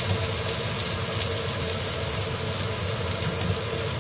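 Chicken curry bubbling and hissing in a non-stick wok on the hob, under a steady mechanical hum with a constant tone.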